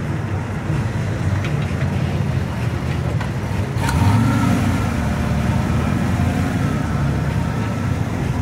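Engine of a VW Baja Bug rally car running as the car rolls slowly at low speed, a steady low rumble that grows louder about four seconds in, with a sharp click just before.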